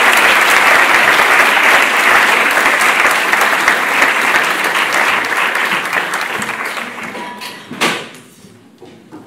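Audience applauding, a dense crackle of many hands clapping that dies away over the last few seconds. A single thump sounds near the end as the applause fades.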